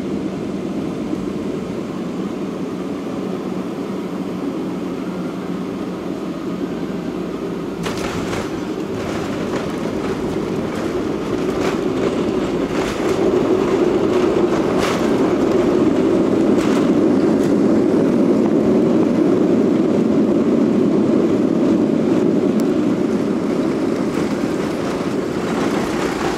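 Jet airliner cabin noise: a steady engine and airframe rumble that grows louder about halfway through, with a few short knocks along the way.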